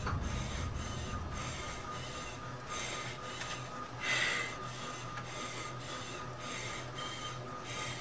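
Rhythmic hissing pulses, about two to three a second, over a steady hum, with one louder rush about halfway through: a cycle ergometer pedalled hard and a rider's heavy breathing during a maximal exercise test.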